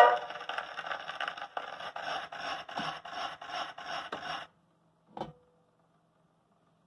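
Cylinder phonograph running on past the end of the music on a blue cylinder record: the stylus gives a rhythmic scratch about three times a second, once per turn of the cylinder, and stops about four and a half seconds in. A single click follows about a second later.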